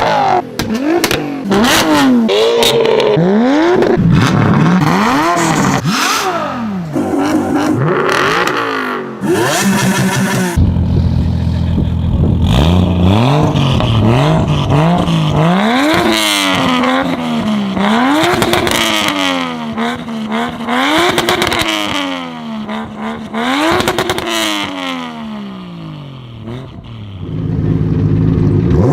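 Modified cars with loud aftermarket exhausts being revved hard again and again, the pitch climbing and dropping with each blip, with sharp cracks and pops from the exhaust. The engine sound changes abruptly about ten seconds in as another car takes over.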